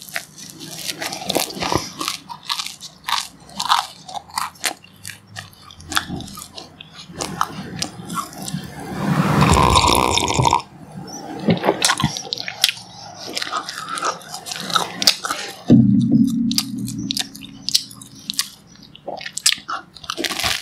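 A person biting and chewing brown bread with strawberry jam, in many short crunching clicks, with a long sip of tea from a mug about halfway through. A short low sound comes about three quarters of the way in.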